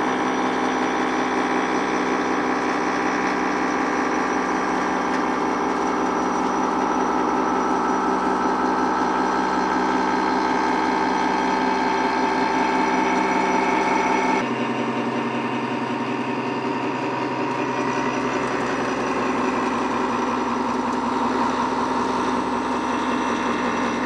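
CNC milling machine's cutter machining the edge of a thin steel ring: a steady mechanical hum with a whine on top. The tone shifts abruptly about 14 seconds in.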